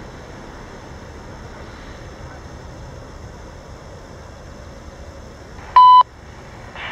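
Distant, steady rumble of a CSX freight train rolling away down the line. Near the end comes a short, loud electronic beep from a scanner radio as a trackside defect detector opens its broadcast.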